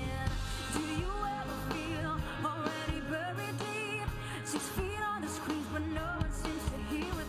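A woman singing a pop song into a microphone, backed by a band with drums and keyboard.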